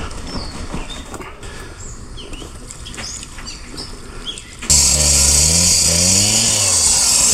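Outdoor background with a few short chirps, then an engine cuts in loudly about two-thirds of the way through, its speed rising and falling, with a strong hiss over it.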